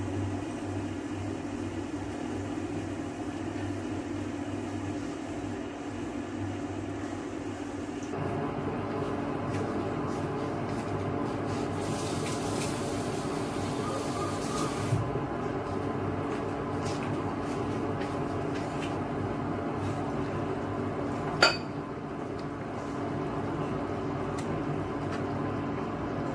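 Induction cooktop humming steadily under a pot of simmering chicken soup, its low tone pulsing in the first few seconds. A few seconds of hiss come near the middle, and a single sharp clink of glass or crockery sounds about two-thirds of the way through.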